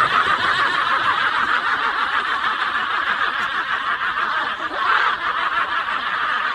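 Many people laughing and snickering together in one continuous wash of laughter.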